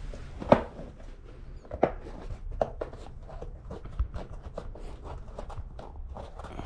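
Irregular handling clicks and knocks from hands working a bike wheel and tire, with the sharpest click about half a second in and a dull low thump about four seconds in.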